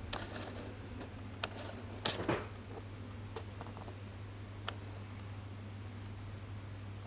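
A steady low hum with scattered light clicks and taps, the loudest a short cluster of taps about two seconds in.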